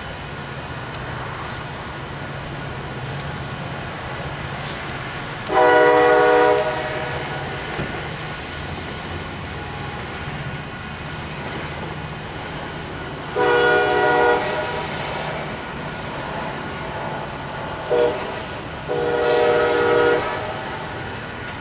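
Diesel train horn of a departing Metra commuter train sounding four blasts, long, long, short, long: the standard signal for approaching a grade crossing. A steady low rumble of the moving train runs under it.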